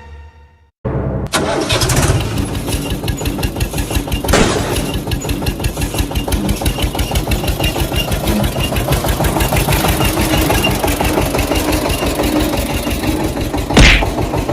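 An engine starting abruptly and then running with a fast, even chug, broken by a few sharp bangs, the loudest near the end.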